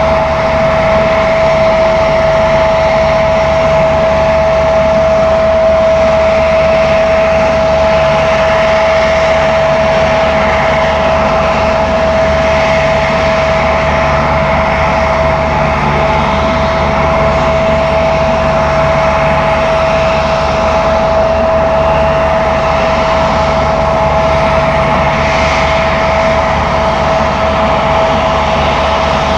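Turbine aircraft engines running steadily: a constant high whine over a low rumble.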